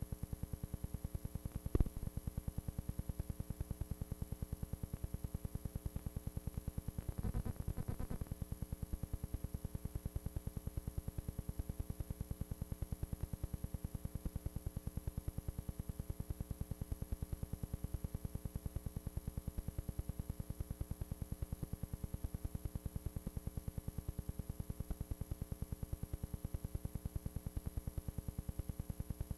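A steady, fast-pulsing buzz with a hum underneath, unchanging throughout, as on the sound track of an old videotape. There is a sharp click about two seconds in and a brief noisy crackle around seven seconds.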